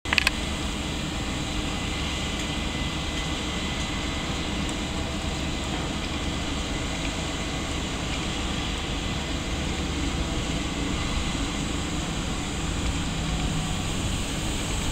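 Class 67 diesel locomotive's two-stroke V12 engine running under power as it propels a rake of passenger coaches out of a station, a steady drone with a thin steady whine on top, the low hum strengthening a little near the end.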